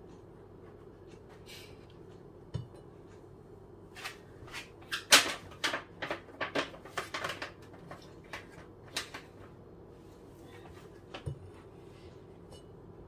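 Knife knocking and tapping on a cutting board while cutting up raw fish. There are a few scattered knocks, then a quick, irregular run of about a dozen sharp knocks in the middle, and one more near the end.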